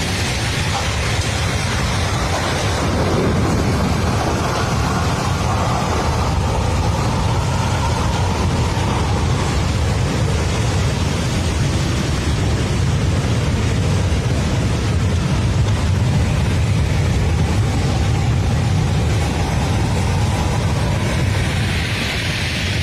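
A swollen mountain stream in flood, its water rushing steadily. It makes a dense, unbroken noise, heaviest in the deep rumble.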